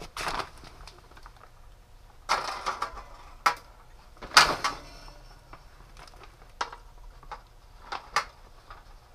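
Handling noises as a wire rack of buckshot pellets for powder coating is set on metal trays over plastic sheeting: scattered clicks and knocks with a few louder rustling scrapes, the loudest a little after halfway through.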